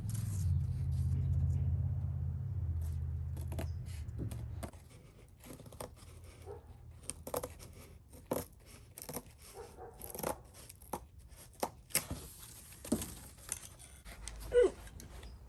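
Packing tape pulled and torn off a roll, with plastic crinkling: a string of short, sharp rips and rustles, the loudest near the end. A low steady hum underneath stops about five seconds in.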